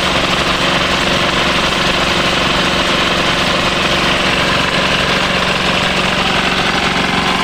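Small diesel engine driving an irrigation water pump, running steadily at a constant speed.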